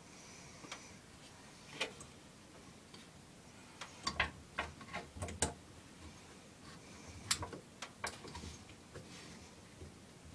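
Irregular clicks and taps of a small engine carburetor and its parts being handled and fitted into place by hand, in two clusters about four and seven seconds in.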